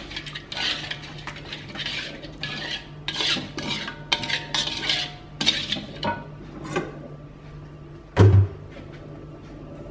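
Metal spatula scraping and stirring a thick basting sauce around the inside of a steel wok, a quick run of scrapes, then one loud clank of metal on metal near the end.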